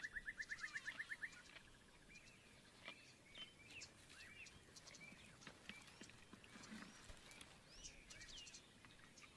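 Faint natural bush ambience of birds: a rapid pulsed trill in the first second or so, then scattered short chirps and whistles.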